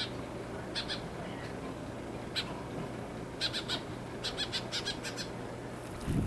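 Birds calling: short calls, singly and in quick runs of three to five, heard most in the second half.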